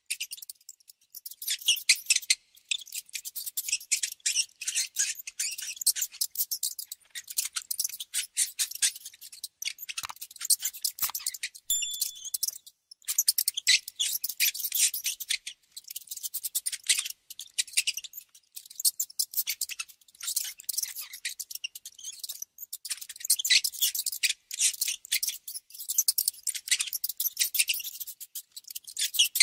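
Rats gnawing and scrabbling: rapid, dry, high-pitched crackling clicks in long bursts, with a couple of brief pauses.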